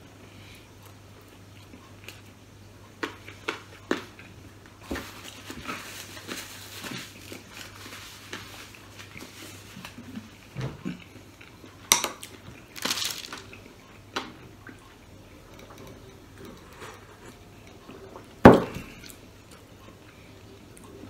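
Eating by hand at a table: chewing, and scattered clicks and rustles of food handled on paper and against dishes, with a few sharper knocks, the loudest about eighteen seconds in.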